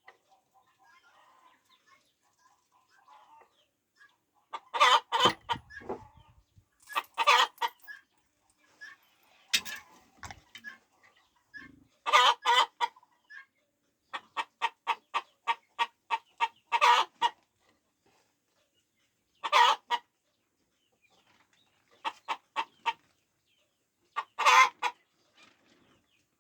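Chickens clucking, with loud single calls and a fast run of short clucks, about four a second, that ends in a longer call, like a hen cackling.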